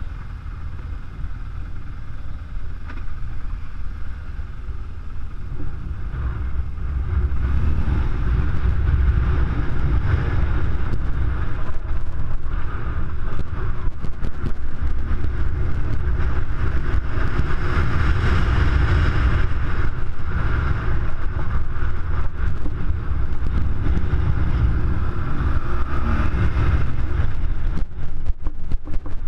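BMW R1200GS Adventure's boxer-twin engine running under way on a gravel track, with wind noise on the helmet-camera microphone. The sound gets louder from about seven seconds in as the bike speeds up.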